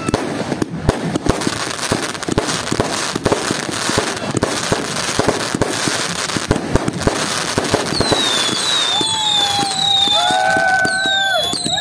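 Aerial fireworks going off in rapid, loud bangs and crackles. About eight seconds in, whistling fireworks join, with many shrill whistles overlapping, the high ones falling in pitch.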